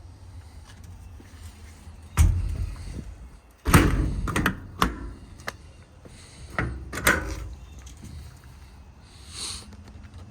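Metal compartment doors on a truck's service body being worked: latch clicks and several hard thuds, the loudest about three and a half seconds in.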